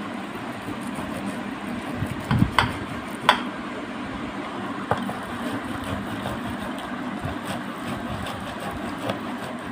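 Fibrous ripe palm fruit rubbed back and forth across a flat metal grater to press out its pulp: a steady scraping, with a few sharp clicks.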